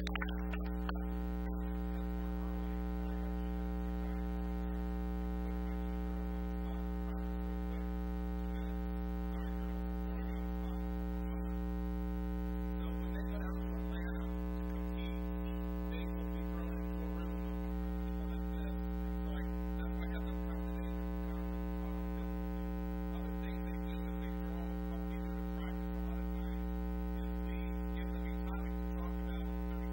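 Steady electrical mains hum: a low, unchanging buzz with a long stack of overtones, with nothing clearly heard above it.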